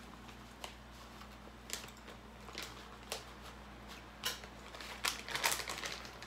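A small plastic packet crinkling and crackling in short, irregular bursts as it is squeezed and shaken to pour powder out of it.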